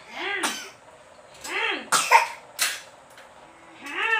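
A baby's voice: three short vocal sounds, each rising then falling in pitch, about a second and a half apart, with a few sharp breathy bursts between the second and third.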